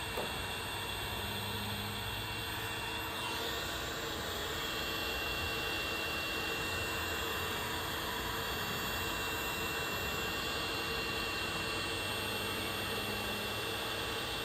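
Ridgid heat gun running steadily, its fan blowing a constant stream of hot air with a thin high whine, shrinking glue-lined heat-shrink tubing over soldered wire joints.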